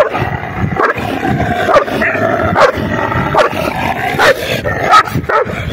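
Dogs snarling and barking at each other in a fight, with sharp barks about once a second over continuous growling.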